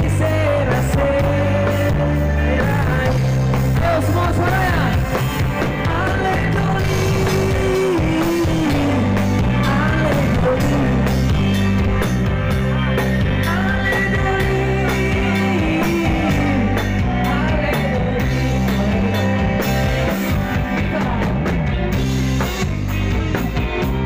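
Live band music, loud and steady, with electric guitar, bass and drums and a voice singing a gliding melody over them.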